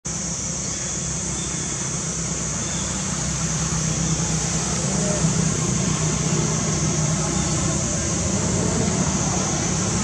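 Steady outdoor background noise: a constant low traffic-like hum under an even high-pitched hiss, with no distinct events.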